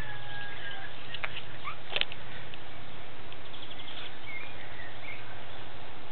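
Garden ambience: a few faint, brief bird chirps over a steady background hiss and low hum, with a single sharp click about two seconds in.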